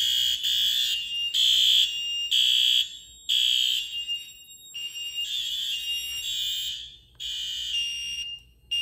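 Fire alarm horns on a Notifier NFS-320 system sounding in alarm after a manual pull station is pulled. A harsh, loud tone pulses on and off about once a second, with one longer unbroken stretch about five seconds in.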